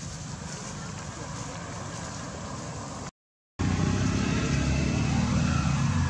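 Steady outdoor rumble, cut to dead silence for about half a second some three seconds in. It then returns louder, with a deeper low hum.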